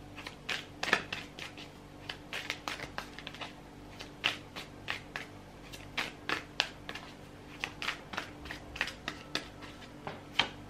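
A deck of tarot cards being shuffled by hand: an irregular run of short, light card snaps and flicks, several a second, over a faint steady hum.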